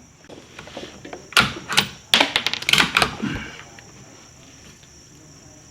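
Bolt of a Savage 93F .22 WMR bolt-action rifle being worked: a quick run of sharp metallic clicks and clacks lasting about two seconds, starting about a second and a half in.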